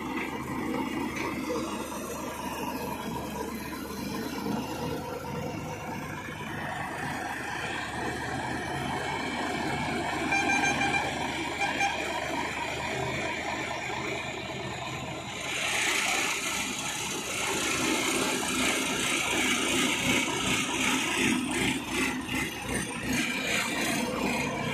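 Escorts EC5250 single-drum road roller's diesel engine running close by, steady, with some rattling. About fifteen seconds in the sound turns brighter and noisier.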